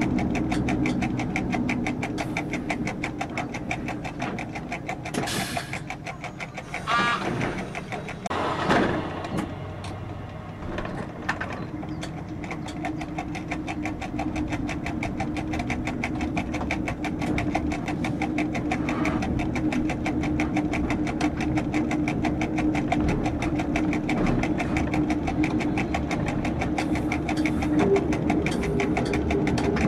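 Diesel railcar engine running with a fast, even rhythmic pulse, heard from inside the driver's cab as the train rolls along. The engine sound drops back for several seconds about a third of the way in, with a few brief louder noises, then builds up again.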